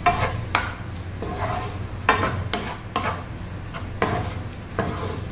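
Spatula scraping and stirring diced carrots and green beans sautéing in oil in a non-stick frying pan, in short uneven strokes about every half second to a second, over a light sizzle.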